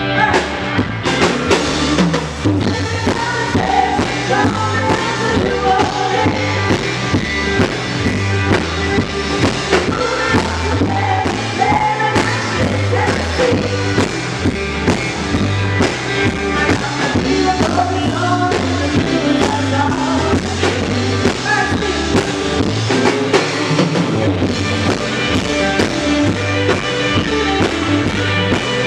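Background music: a song with a steady drum beat, bass and singing.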